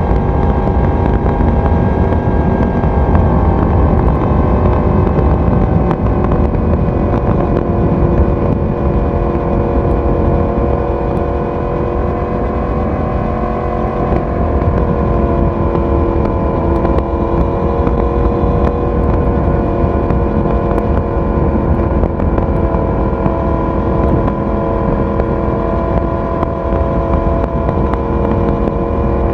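Yamaha YZF-R1 inline-four engine and exhaust running at a steady cruise, its note holding an even pitch, easing off slightly about halfway through before settling again.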